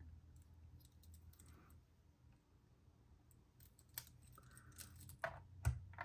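Faint, scattered plastic clicks and taps from handling the Melgeek Pixel keyboard and its Lego pieces, sparse at first and more frequent in the second half.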